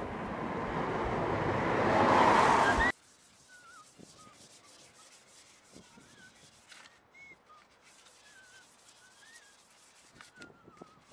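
Hand rubbing or sanding on a car's painted body panel: a loud scrubbing noise that swells and then cuts off about three seconds in. After that come faint soft rubbing strokes with a tune being whistled quietly.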